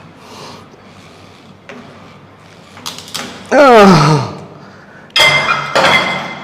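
A man grunting with effort during a strength-exercise set, breathing hard, with one loud groan about halfway through that falls sharply in pitch. Near the end come two sudden loud clanks with a metallic ring.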